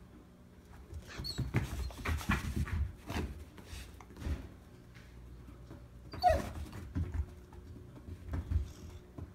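A black Labrador giving soft, stifled "inside barks" and whines while waiting to have her toy thrown: a cluster of short sounds from about one to three seconds in, and a louder falling call about six seconds in.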